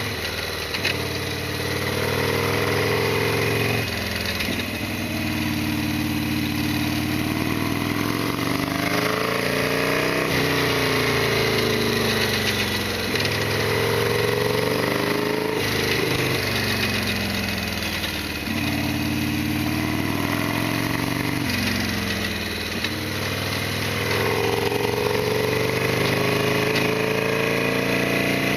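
Harley-Davidson XL1200R Sportster's air-cooled V-twin running under way. Its pitch repeatedly climbs and then drops back, about every two to three seconds, as the throttle is opened and closed.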